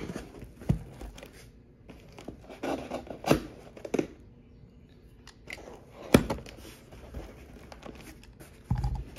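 Cardboard shipping box being opened by hand: flaps pulled apart and tape tearing, with cardboard rustling and crinkling. Several sharp knocks and scrapes against the box, the loudest about three and six seconds in, and a dull thump near the end.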